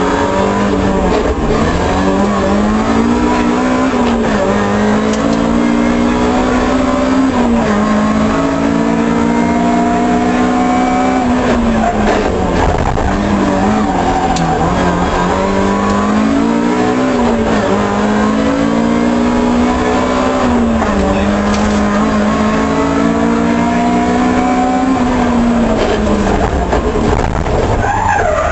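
Toyota Corolla GT's 1.6-litre four-cylinder rally engine, heard from inside the cabin, driven hard through the gears. Its pitch climbs and drops sharply at each upshift, with a couple of deeper drops as the driver lifts off and gets back on the throttle.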